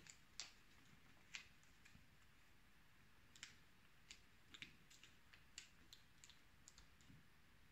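Faint, scattered clicks and crinkles of a sheet of origami paper being folded and creased by hand, about a dozen soft ticks over near silence.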